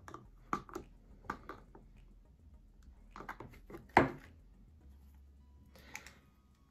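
Small clicks and light taps as a clock face, its quartz movement and the hex nut and washers on the spindle are handled and tightened, with one sharper knock about four seconds in.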